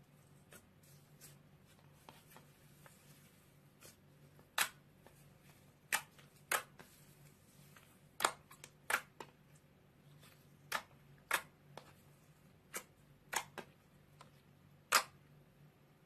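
Slime being squeezed and worked by hand, giving sharp, irregular pops and clicks of trapped air: faint at first, then about a dozen louder pops from about four seconds in.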